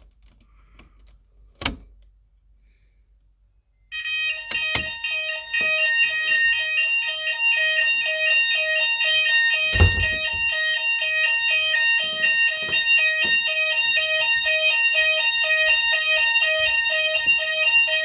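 Hochiki addressable fire alarm sounders set off from a manual call point, starting about four seconds in with a loud, fast-alternating electronic two-tone alarm that keeps going. A click comes just before the alarm starts, and a thump comes partway through.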